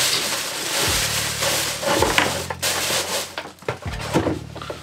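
Tissue paper rustling and crinkling as it is pulled off a sneaker. The rustling is steady for the first couple of seconds, then breaks into short scattered rustles and handling noises.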